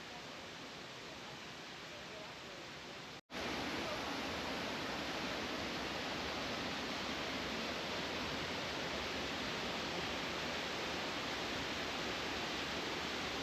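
Waterfall rushing steadily. About three seconds in the sound cuts out for an instant and comes back louder and fuller.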